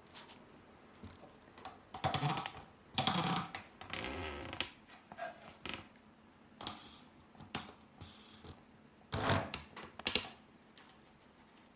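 Irregular plastic clicks and clatter from handling a wireless keyboard, in uneven clusters; the loudest come about two to four seconds in and again around nine to ten seconds in.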